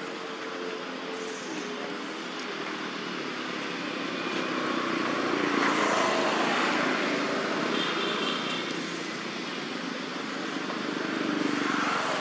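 A motor vehicle's engine droning in the background, swelling louder about midway, then fading and rising again near the end.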